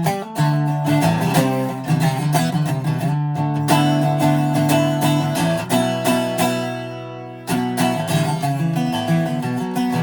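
Greco D-70 acoustic guitar being played, strummed chords and picked notes. About six seconds in, a chord is left to ring and fade before the playing starts again.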